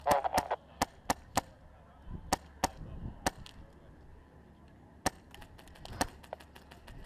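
Airsoft rifle firing a string of single shots, each a sharp snap, a few in quick succession at the start and a faster run of lighter snaps near the end.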